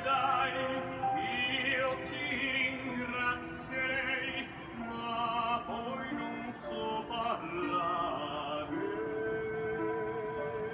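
Operatic-style Italian song playing as background music: a singer with strong vibrato over instrumental backing, holding one long note near the end.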